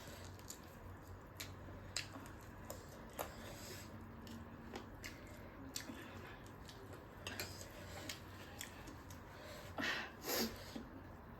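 Close-miked eating: soft chewing with scattered mouth clicks and wet smacks, and a couple of louder noisy bursts near the end.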